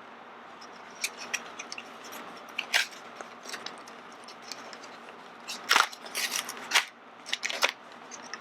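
Small cardboard box being torn and crushed open by hand: irregular sharp crackles, rips and crunches, with a burst of the loudest ones around six seconds in.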